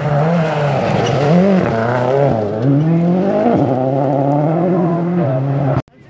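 Rally car engine at full stage pace on a gravel forest road, its revs repeatedly climbing and dropping as the driver works through the gears and lifts for the bend. The sound cuts off suddenly near the end.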